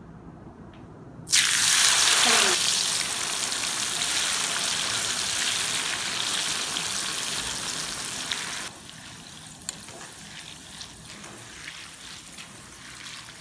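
Soaked chana dal dropped into hot oil for deep-frying: a sudden loud sizzle starts about a second in and slowly fades. It drops abruptly to a quieter, steady frying bubble with scattered small pops as the dal is stirred with a slotted ladle.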